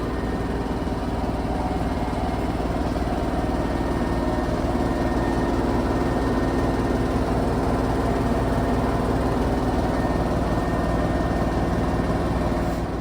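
Samsung front-load washing machine in its final spin cycle: a steady hum from the spinning drum and motor, nice and quiet with no banging or shaking, on a freshly replaced flange shaft and bearings. The sound drops away just before the end.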